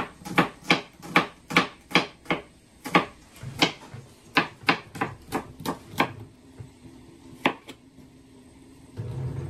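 Kitchen knife chopping on a cutting board, sharp even strokes about three a second. The chopping stops about six seconds in, with one more stroke a little later.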